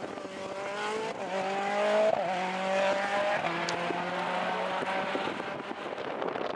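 Mini WRC rally car's turbocharged four-cylinder engine pulling hard on a loose, muddy stage, its note stepping down in pitch a couple of times as it changes gear.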